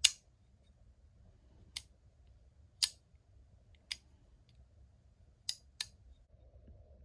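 Sharp metallic clicks of a Damned Designs Djinn XL titanium frame-lock flipper knife being flipped open and snapped shut: six clicks at uneven spacing, the loudest right at the start and the last two close together.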